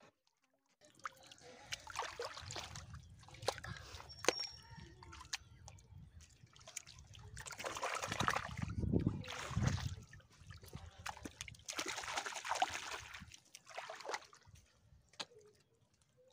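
Hands sloshing and squelching through wet mud and shallow muddy water in irregular bursts, with scattered small splashes and clicks.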